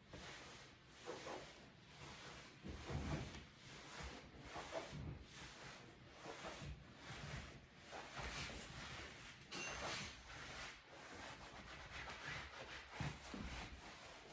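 A cloth rubbing over leather upholstery in repeated wiping strokes, roughly one a second, with a couple of soft low thumps.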